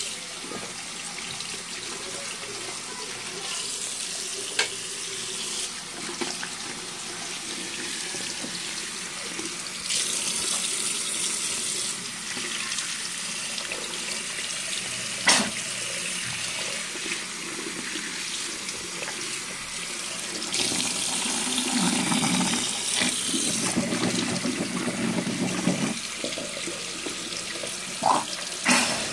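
Bathroom tap running steadily into a sink, the stream splashing over a toothbrush and then over a cupped hand held under it. A few short sharp knocks break through, the loudest about halfway through.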